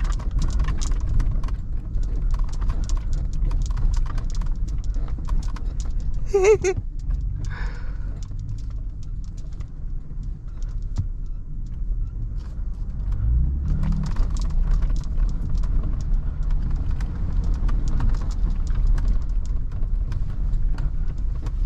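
Ford Raptor's twin-turbo 3.5-litre EcoBoost V6 and running gear heard from inside the cab while driving over rough, muddy ground: a steady low drone with many small clicks and knocks. There is a brief higher-pitched sound about six seconds in, and the engine revs up a little past the middle.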